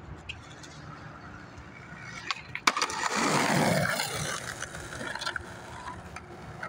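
Skateboard wheels rolling on pavement, after a sharp clack of the board about two and a half seconds in. The rolling is loudest for a second or two after the clack and then eases off.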